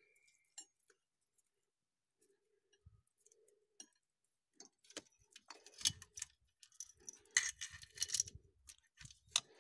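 Light metallic clicks, clinks and small rattles of parts and wire being handled on an ATV engine's open top end. A few scattered clicks at first, then a busy run of clinking from about halfway.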